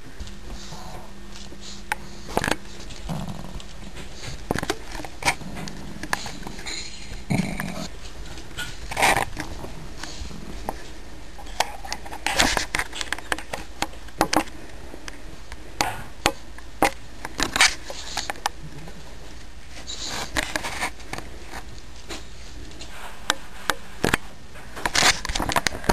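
Irregular rustling, scraping and sharp clicks of close handling among a small dog's fluffy bedding.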